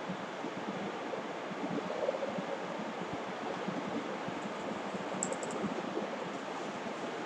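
Steady hiss of room noise while chalk writes on a blackboard, with a quick cluster of faint sharp clicks about five seconds in.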